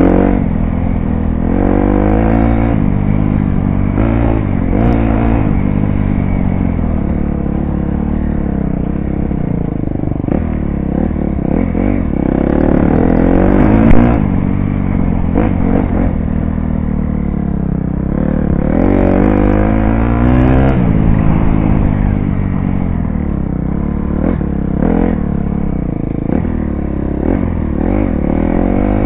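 KTM dirt bike engine running under load while riding, revving up and down as the throttle opens and closes and the gears change. Its pitch climbs several times, most clearly around twelve and eighteen seconds in, and drops back between.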